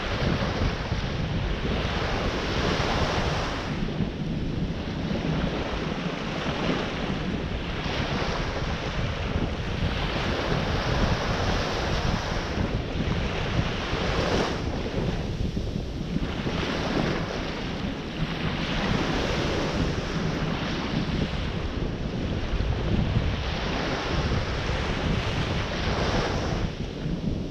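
Ocean surf washing ashore, the wash swelling and easing every few seconds, with wind buffeting the microphone.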